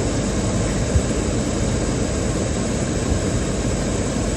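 Steady rushing air noise, with a light knock about a second in.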